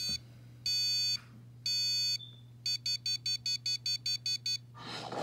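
Electronic beeping from the sound module of a Wolf Predator costume gauntlet, just switched on: two long beeps, then a quick run of about ten short beeps, about five a second. Near the end a rush of noise rises in.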